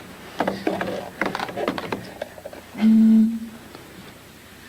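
Blowing across the mouth of a partly water-filled bottle: a few breathy puffs, then a clear, low, hooting note held for under a second about three seconds in. The note's pitch is set by how much water is in the bottle.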